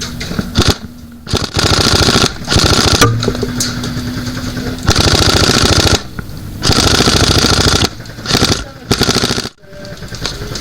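Airsoft gun firing on full auto: several long rapid-fire bursts of a second or more each, separated by short pauses, with a couple of shorter bursts near the end.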